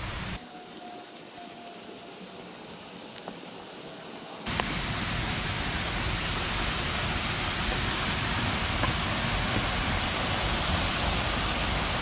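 Steady rush of falling water from a waterfall: fainter for the first few seconds, then suddenly louder and fuller from about four and a half seconds in.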